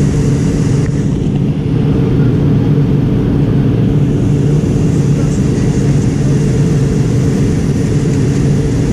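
Steady in-flight cabin noise of an MD-88 jetliner heard from inside the cabin: a constant low drone from its tail-mounted Pratt & Whitney JT8D turbofans and the rushing air, with a steady low hum.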